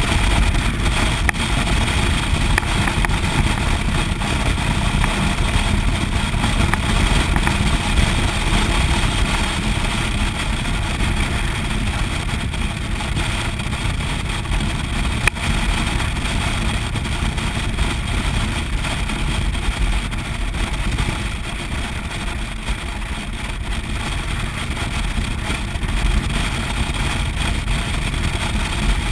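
Motorcycle riding at a steady road speed: engine running under constant heavy wind and road noise on the handlebar-mounted microphone.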